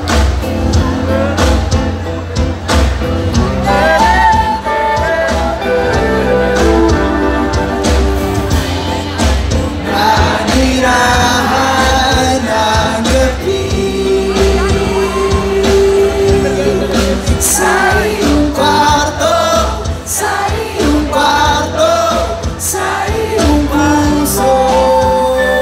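Live band performing a song: singing over acoustic and electric guitars with bass and drums.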